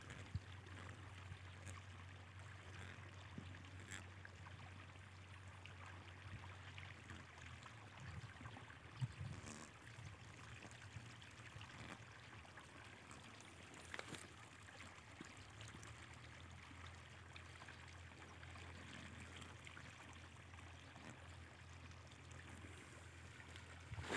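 Near silence: a faint, steady outdoor hiss with a low hum, broken by a couple of faint ticks.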